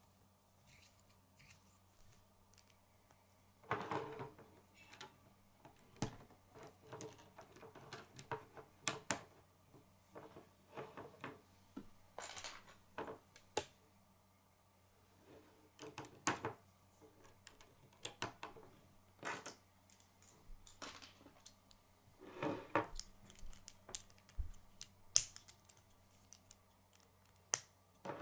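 Plastic K'nex rods and connectors clicking and snapping together as pieces are handled and fitted, in irregular clicks and short rattles.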